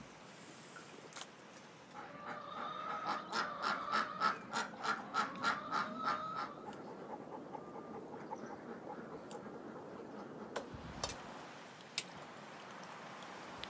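Domestic fowl calling in a rapid run of short repeated calls, about four a second, lasting about four seconds, followed by a few sharp taps near the end.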